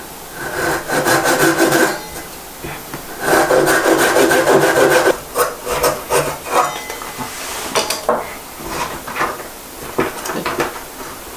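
Japanese ryoba pull saw cutting through a clamped wooden spoon blank. Two runs of quick rasping strokes come first, each lasting a second or two. Lighter, scattered strokes and clicks follow as the cut finishes.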